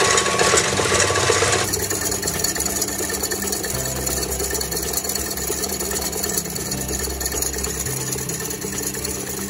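KitchenAid Classic Plus stand mixer running, its wire whip beating a thin instant-coffee mixture for whipped coffee. The sound is loudest at first and drops to a quieter, steadier level about two seconds in.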